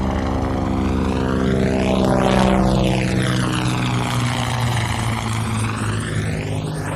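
Helicopter sound effect played through a Doppler shift effect set to a fast fly-by speed: the rotor and engine sound swells to a peak about two and a half seconds in, then slowly fades, with a sweeping whoosh as the simulated source passes.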